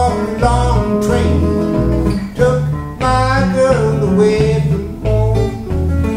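Steel-string acoustic guitar played solo in a driving rockabilly rhythm: steady bass notes about twice a second under higher notes, some of them bent in pitch.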